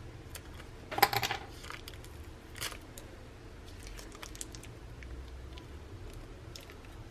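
Small clicks and taps of repair tools handling the phone's battery, with a louder cluster of clicks about a second in, over a faint steady low hum.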